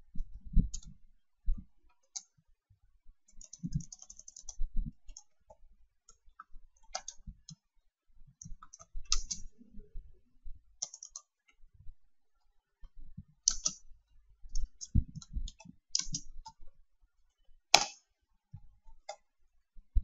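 Computer keyboard typing in irregular short runs of key clicks, with a few dull low knocks among them. A single sharp click near the end is the loudest.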